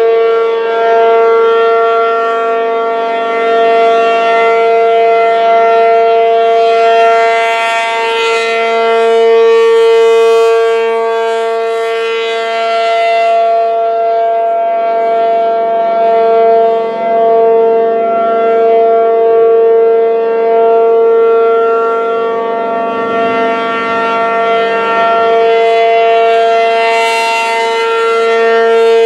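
P-50 motor-driven outdoor warning siren running continuously at full speed: one steady loud tone with no rise or fall in pitch, swelling and dipping slightly in loudness. It is stuck on after its monthly test, a fault the uploader puts down to a welded relay in its controls.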